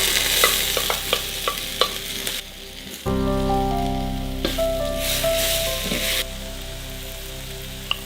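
Food frying in hot oil in a pan, sizzling in two stretches, with a utensil clicking against the pan during the first.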